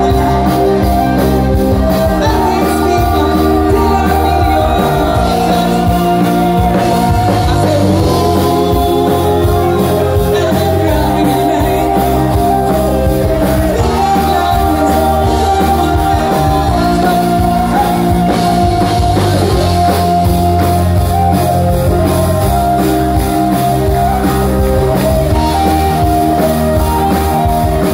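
Live rock band playing a song loud through a PA: a singer over electric and acoustic guitars, bass and drums keeping a steady beat.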